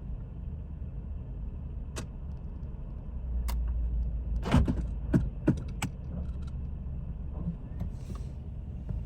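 Chevrolet Sonic engine idling roughly just after refuelling, a steady low rumble; the owner blames a failing evaporative emissions purge valve drawing in fuel vapour (code P0496). A handful of sharp clicks and knocks sound over it, about two to six seconds in.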